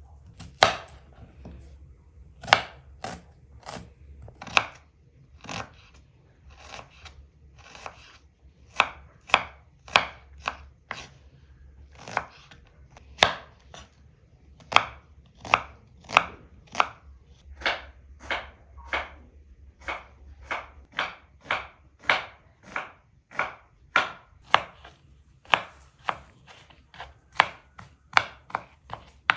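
Kitchen knife chopping onion on a wooden cutting board: a long run of sharp knocks, about one to two a second, with an uneven rhythm.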